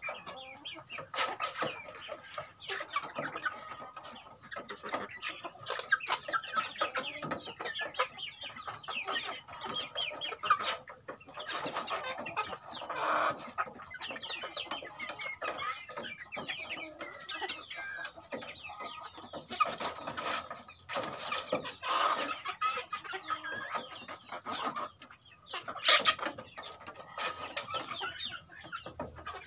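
A flock of Indonesian native chickens (ayam kampung) clucking and calling over one another without pause while they feed, with a few sharp taps now and then.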